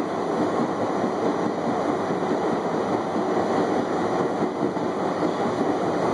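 R68A subway train running at speed, heard from inside the front car: a steady running noise of wheels on rail through a tunnel.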